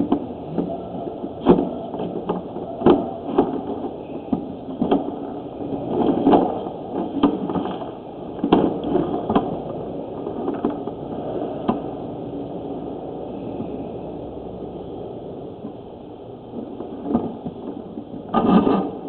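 Irregular knocks and scrapes over a steady background noise, thinning out after about twelve seconds, with a cluster of louder knocks near the end.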